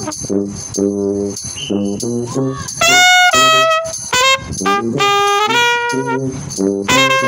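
Trumpet playing a melodic line of short notes and held notes, with a loud high held note about three seconds in and another bright note near the end.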